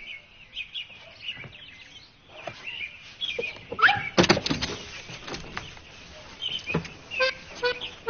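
Bird chirps with a few sharp knocks about halfway through. Near the end a rhythmic, honking, accordion-like tune starts.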